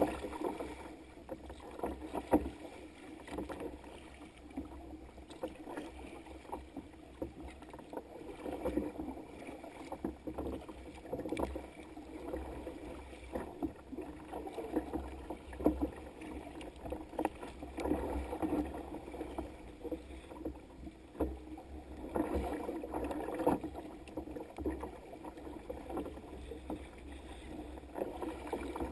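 Choppy sea slapping and splashing against a sea kayak's hull as it moves through the waves, in irregular slaps every second or so over a steady low rumble, heard close up from the deck.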